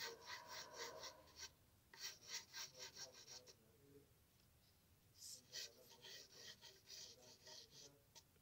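Faint scratching of a wooden pencil drawing on lined paper: quick runs of short sketching strokes, several a second, with a pause of about a second and a half past the middle.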